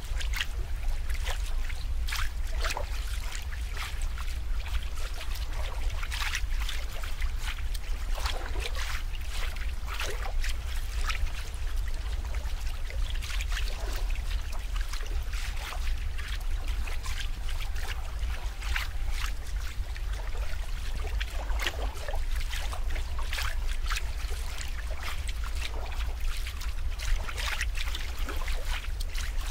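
Water trickling and splashing: irregular small splashes and short gurgles over a steady low rumble.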